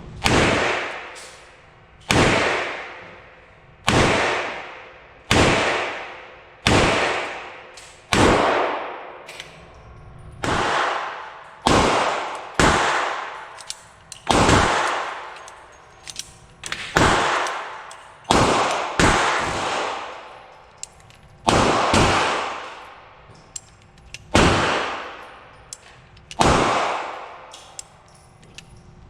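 A .357 Magnum single-action revolver firing a long string of shots, one every one to two seconds, each shot followed by a long fading echo, with a few faint clicks between some shots.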